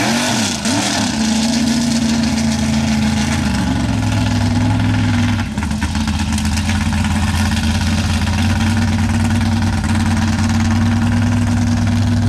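Chevy mega mud truck's engine revving up and down a few times in the first second or so, then running steadily at a fast idle.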